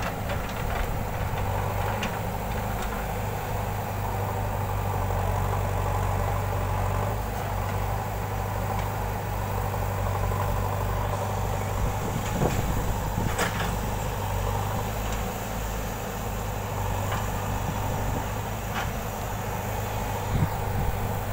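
Diesel engines of a tracked excavator and a JCB 3DX backhoe loader running steadily, with a low hum and a few short knocks.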